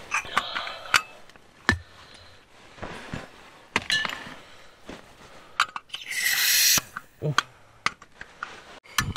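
Metal clicks, knocks and clinks as a portable camping gas stove and its canister are handled and changed over, with a short hiss about six seconds in.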